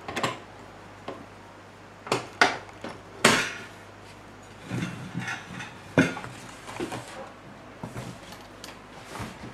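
Kenwood stand mixer being assembled by hand: a few sharp plastic-and-metal clacks and knocks as the attachment is pushed onto the mixer head and the head is lowered onto the stainless steel bowl, the loudest about a third of the way in.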